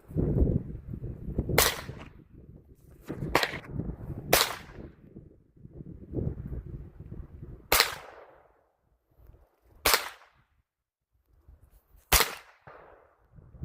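Six single shots from a .22 rifle, each a sharp short crack, fired at uneven intervals of one to three and a half seconds.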